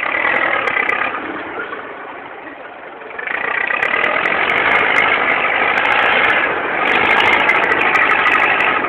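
Farm tractor's diesel engine running close by. It grows louder about three seconds in and stays loud, with a brief dip near two-thirds of the way through.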